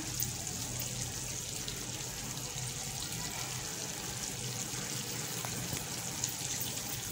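Soft, steady sizzle of dry chicken masala cooking in oil in a kadhai over a low gas flame.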